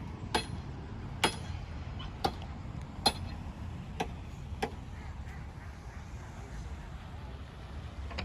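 Sharp knocks, about one a second, six in a row that stop about five seconds in: hammer blows from workers assembling a bench. A steady low rumble lies underneath.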